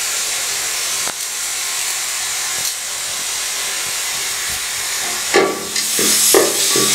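Beef sizzling in a hot metal pot: a steady hiss. From about five seconds in, a wooden spatula stirs and scrapes the meat against the pot.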